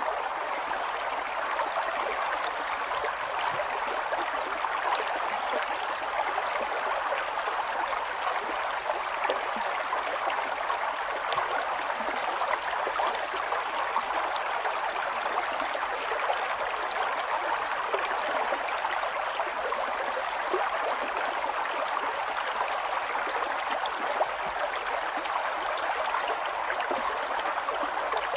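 Flowing water, a stream running steadily with fine splashing.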